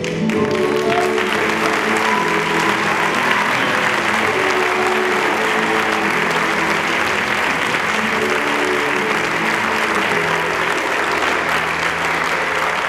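Audience applause breaks out and continues steadily, with the song's closing music still playing underneath in sustained chords.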